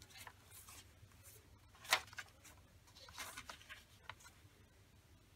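Paper rustling as the pages of a handmade junk journal are handled and turned. It comes as several short, soft strokes, with one crisper one about two seconds in.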